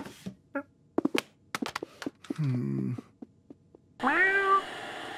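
Cartoon cat sounds: a few light taps and clicks, a low pitched sound that falls in pitch about two and a half seconds in, then a cat's meow, rising then falling in pitch, about four seconds in, followed by a faint hiss.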